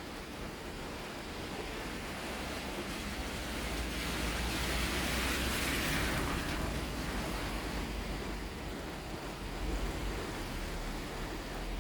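Typhoon wind and rain: a steady rushing noise that swells about four seconds in and eases off again by seven seconds, over a low rumble.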